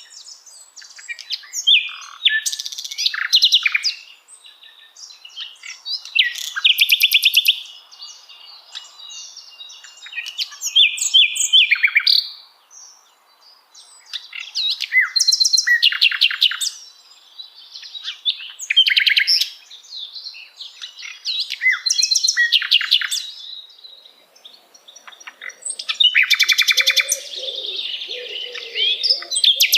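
Common nightingale singing: a series of varied high phrases, each a second or two long and many built of fast repeated notes, broken by short pauses.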